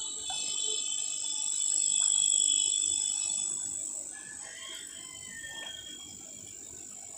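Outdoor insect chorus: a steady, high-pitched shrill drone that swells about two seconds in and then eases off. A faint short call is heard about halfway through.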